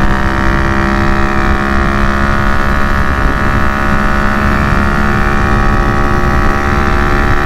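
Honda Grom's single-cylinder engine running steadily at highway cruising speed, heard from the saddle, with wind rumbling on the microphone.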